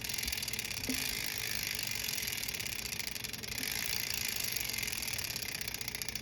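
Rear wheel spinning freely with its freehub (Hayes Super Bubba hub) clicking in a fast, even buzz of pawl ticks.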